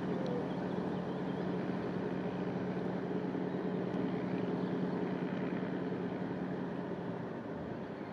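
Engine of a small car ferry running steadily, a low hum over a wash of noise, which fades away near the end.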